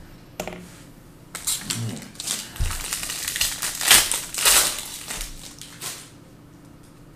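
Trading card pack wrapper crinkling and tearing as it is opened by hand, for about four and a half seconds, loudest about midway.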